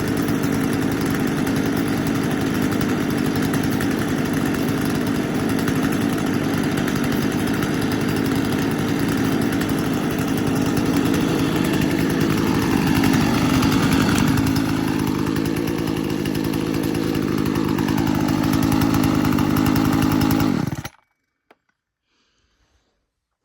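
Stihl MS250 two-stroke chainsaw engine running at a steady speed, a little louder for a moment around the middle, then stopping suddenly near the end.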